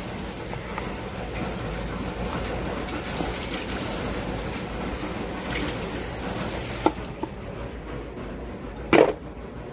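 Tap water running into a kitchen sink, splashing into and over a plastic container as it is rinsed, then shut off suddenly about seven seconds in. A short knock near the end.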